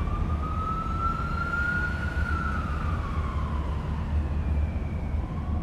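A siren wailing once, its tone slowly rising for about two seconds and then falling away, over a steady low rumble.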